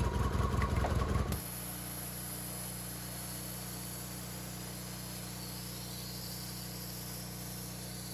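A small engine running with a rapid pulsing beat, cut off abruptly about a second and a half in; after it, a steady low hum with a faint hiss.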